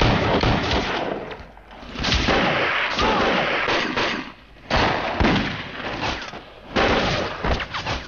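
Rapid rifle and pistol fire in a film battle scene, many shots overlapping in four dense bursts with brief lulls between them.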